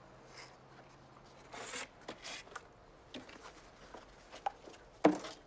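Quiet handling noise: a few short rustles and scrapes, then one sharp knock near the end.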